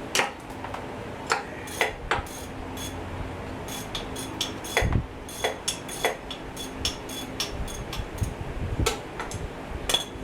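Irregular metallic clinks and taps of a hand wrench working on the bolts of the engine's inspection plate and bellhousing, some with a short bright ring.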